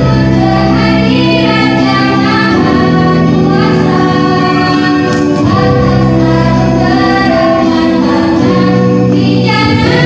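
A high-school girls' choir singing in harmony, holding long chords that change every couple of seconds.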